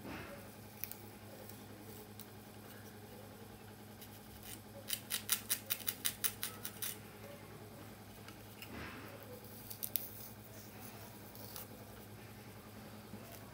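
Wooden comb's teeth scratching through braided hair as cornrows are picked apart, heard close up. There is a quick run of about a dozen crisp scratching strokes around the middle, and a few more scattered ones later.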